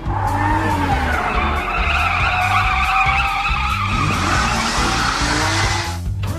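A long, wavering screech sound effect that cuts off abruptly about six seconds in, over background music with a steady beat.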